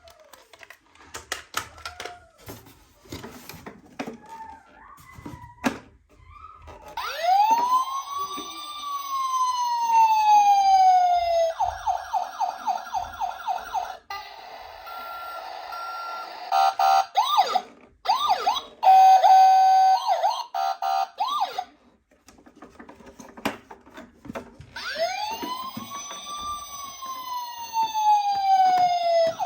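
Small clicks and plastic clatter, then the electronic siren of a miniature toy ambulance cycling through its patterns. A wail rises and then falls slowly over a few seconds, a fast warbling yelp follows, then other electronic siren tones, and the rising-and-falling wail comes back near the end.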